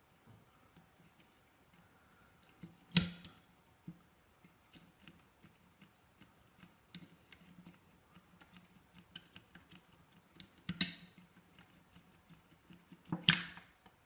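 Scattered light clicks and taps of small objects being handled, with three louder clattering knocks, the first about three seconds in and two near the end.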